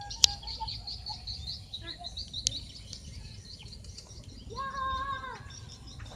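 Birds chirping in a quick run of high notes, then one drawn-out call at a steady pitch, about a second long, starting some four and a half seconds in, over a low steady rumble.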